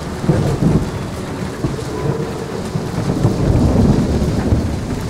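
Storm sound effect: a low, rolling rumble like distant thunder, with a faint hiss of rain.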